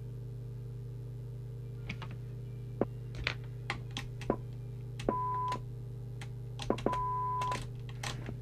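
A CB radio's speaker gives out a steady test tone of about 1 kHz twice, each lasting about half a second, as the squelch opens on the signal generator's signal while the squelch preset is being set. Scattered clicks and a steady low hum and whine run underneath.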